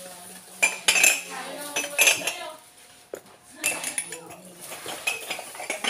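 Glazed ceramic mugs clinking against each other as they are handled and lifted out of a box, in several short clusters of sharp clinks.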